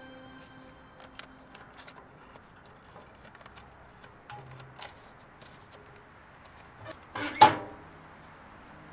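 Faint scattered clicks of handling, then about seven seconds in a sharp metallic clank with a short ring: a steel curbside mailbox banging shut.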